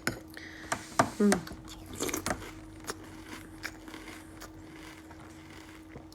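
Chewing a mouthful of crunchy Cinnamon Toast Crunch cereal, with a few sharp crunches in the first couple of seconds, then quieter chewing with scattered small crackles.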